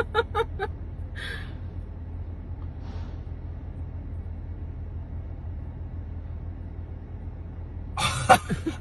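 Steady low background rumble, with a few trailing syllables of speech right at the start and a short breathy sound about a second in.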